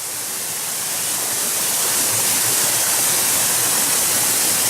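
Waterfall: a loud, steady rush of falling water that swells slightly over the first second or so, then holds even.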